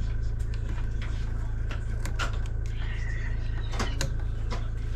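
Scattered light clicks and knocks of hands handling parts, the loudest just before four seconds in, over a steady low hum.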